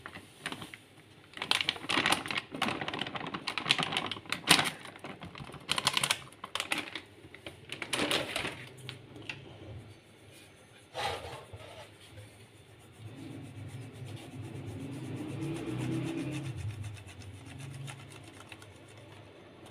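Flour poured from a plastic packet into a metal sieve, with irregular rustling and clattering bursts. From about two-thirds of the way in, the sieve is shaken over a metal bowl to sift the flour, a steadier rattling and rubbing of metal on metal.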